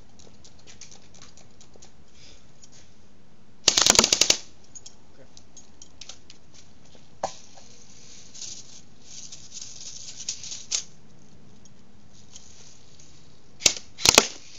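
Airsoft gun firing a rapid full-auto burst of BBs lasting under a second, aimed at a water bottle. A lone click follows, then two single shots near the end.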